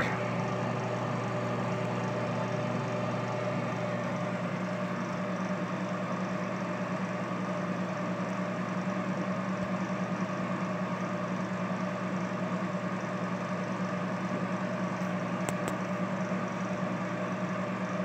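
LG microwave oven running on a one-minute cook, a steady, unchanging hum, heating a bowl of beaten egg.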